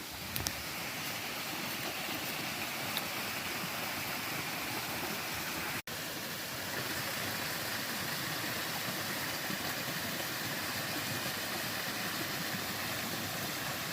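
Mountain stream water rushing steadily, with a couple of small clicks early on and a brief cut-out about six seconds in.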